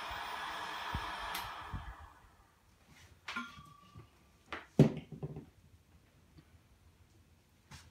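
A hand-held hot-air blower running steadily, stopping about two seconds in. After it come several short knocks and thunks, the loudest about five seconds in.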